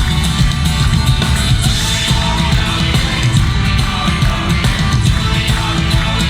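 Live band playing an Irish folk song loudly through a PA, with a fast, driving beat.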